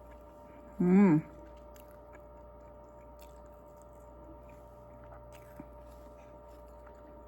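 Quiet chewing of soft, chewy cake, with one short vocal sound about a second in.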